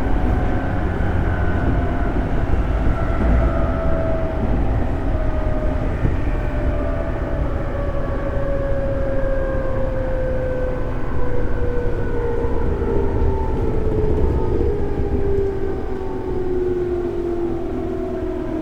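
JR 211 series 5600 subseries electric train running, with a steady low rumble and a traction motor and gear whine that falls slowly in pitch as the train slows.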